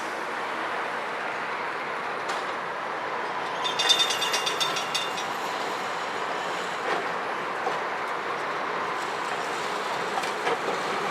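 1913 heritage streetcar at a station stop, its steady running noise broken about four seconds in by a quick metallic rattling clatter of rapid strikes that lasts about a second and a half.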